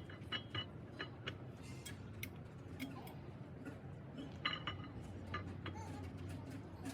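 Scattered light metallic clinks and ticks, with a small cluster about four and a half seconds in, over a low steady hum.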